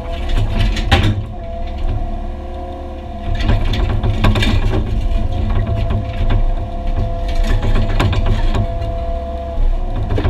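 Excavator working on a concrete pad: its diesel engine and hydraulics run under load with a steady low rumble and whine, while irregular sharp clanks and cracks come from the bucket or breaker and breaking concrete.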